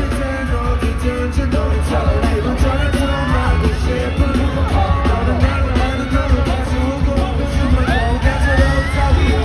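A K-pop song performed live: group vocals singing over a loud backing track with heavy, steady bass.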